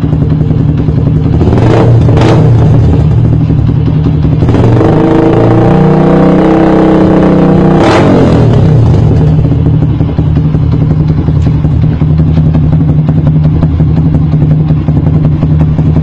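Yamaha Sniper 150's single-cylinder four-stroke engine running loud through an EXOS R5 V2 aftermarket muffler. It idles, is blipped twice about two seconds in, then is held at higher revs from about four and a half to eight seconds, where the revs drop sharply back to idle.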